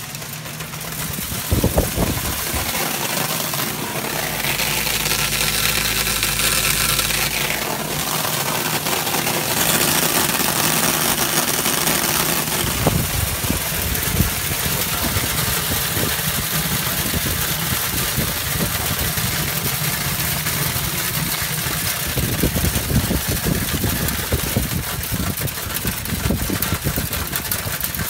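TAIHO optical color sorter running with a steady mechanical hum and air hiss, with a louder hiss from about four to eight seconds in. Sorted plastic flakes rattle down its chutes into plastic tubs.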